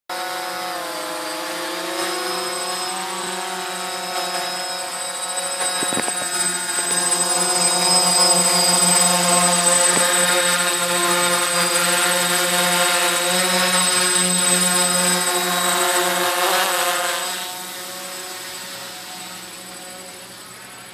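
DJI F450 quadcopter's four electric motors and propellers whining in flight, a steady multi-toned buzz. It grows louder as the drone hovers close and fades near the end as it flies off.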